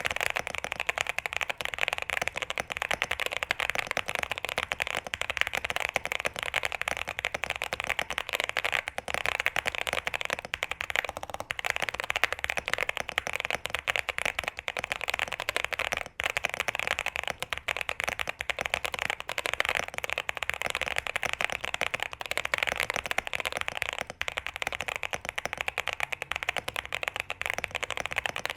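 Fast, continuous typing on a QK65 65% custom mechanical keyboard, dense keystroke clacks with a brief pause about halfway through. The board is dampened with case foam, plate foam and PE foam to give it a deeper sound.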